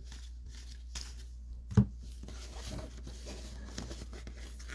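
Baseball trading cards handled and flipped through by hand: faint sliding and rustling with small clicks, and one short sharp tap a little under two seconds in.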